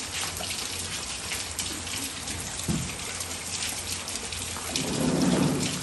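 Light rain falling on a wet concrete courtyard: an even patter with scattered sharper drop hits. A brief louder muffled sound comes about five seconds in.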